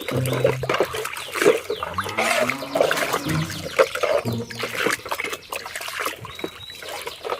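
Water running and splashing, with wet scrubbing noises, as a muddy plastic toy is washed.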